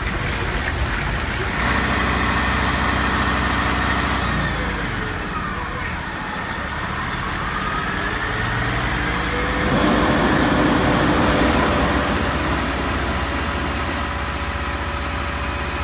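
Fire truck engine running steadily, its note stepping up and down a few times, with a fainter whine that slides up and down in pitch.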